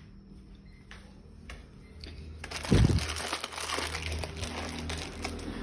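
Handling noise: a thump about two and a half seconds in, then a few seconds of crinkling and rustling.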